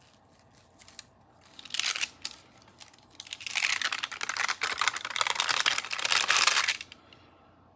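Plastic sheeting crinkling as a thin polymer clay slab is peeled up off its stencil and backing sheet: a short crackle about two seconds in, then a longer, louder crinkling, tearing-like rasp from about three and a half seconds that cuts off just before seven seconds.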